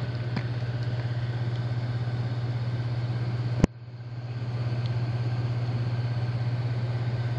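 HVAC indoor air handler's blower running with a steady low hum that pulses quickly and evenly. A single sharp click comes about three and a half seconds in.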